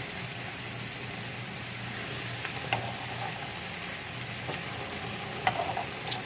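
Bread pieces frying in hot cooking oil in a frying pan: a steady sizzle with a few small crackles and pops.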